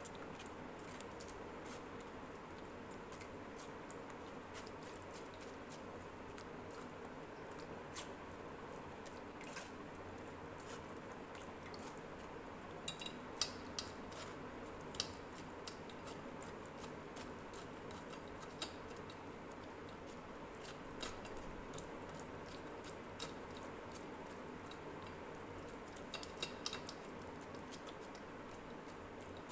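Steel spoon scraping and pressing thick ground jamun pulp through a stainless-steel mesh strainer, with scattered light clicks and taps of metal on metal, a cluster about halfway through and another near the end.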